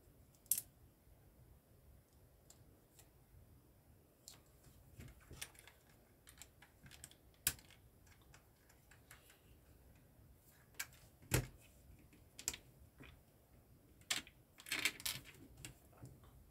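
Plastic LEGO bricks being handled and pressed together: irregular sharp clicks and snaps, with a quick run of clicks near the end.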